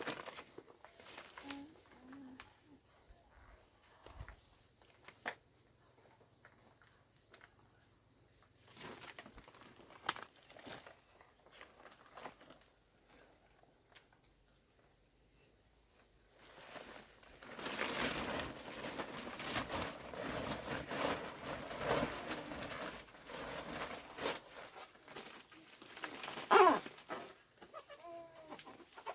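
Insects chirring steadily at a high pitch, with scattered clicks and knocks. About halfway through, a louder stretch of rustling and scraping begins, with a sharp, louder sound near the end.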